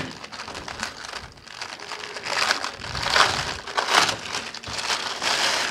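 Clear plastic poly bag crinkling and rustling as it is opened by hand, in irregular bursts that grow louder after the first couple of seconds.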